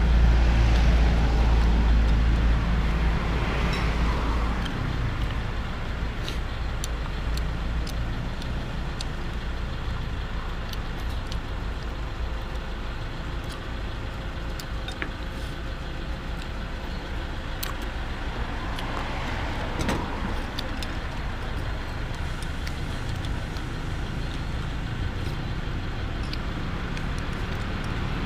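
Road traffic passing on a street: a vehicle goes by with a deep rumble in the first few seconds, and another passes about twenty seconds in, over a steady traffic hum with scattered light clicks.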